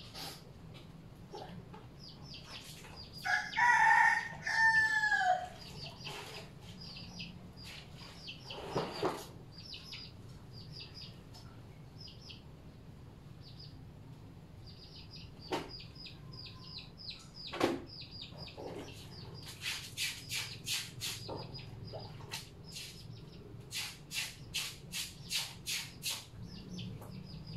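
A rooster crows once, a long call a few seconds in, falling in pitch at the end; it is the loudest sound. Around it, clothes are hand-washed in a basin: water splashes and scrubbing strokes, coming about two a second near the end.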